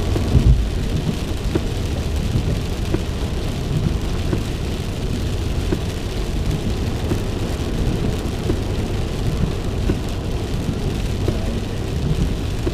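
Heavy rain hitting a car, heard from inside the car: a dense steady wash of rain with many small ticks of drops. There is one low thump about half a second in.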